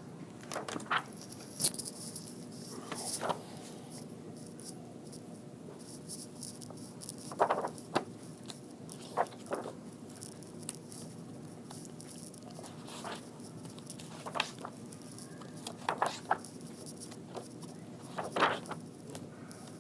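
Quiet room with a low steady hum, broken by scattered short rustles, taps and scrapes, a dozen or so, the kind made by handling paper, books and desk things.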